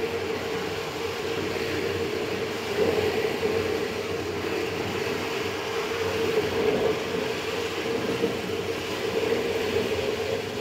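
Steady background hum with hiss, even in level throughout, with a steady mid-pitched tone in it.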